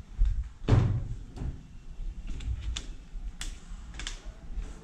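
A handful of light knocks and clunks from objects, such as a plastic water bottle, being handled and set down on a wooden workbench. The heaviest thud comes less than a second in.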